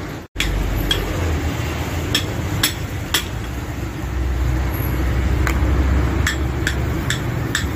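Sharp metallic clinks of a steel rod knocking against the balls and cage inside a greasy drive-shaft CV joint as it is worked apart. The clinks come singly and in short runs about half a second apart, over a steady low rumble.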